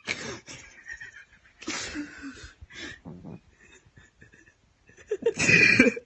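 A cat vocalising with its mouth wide open and fangs bared, in a string of short breathy bursts, the loudest near the end.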